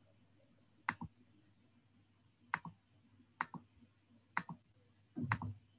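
Computer mouse button clicking: five clicks about a second apart, each a quick pair of snaps, the last one near the end louder.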